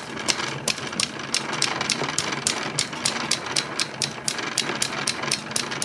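A cleaning rod with an oil-soaked patch being worked through the barrel of a Smith & Wesson Model 10 .38 Special revolver: a steady run of short scraping strokes, about three a second, over a faint steady hum.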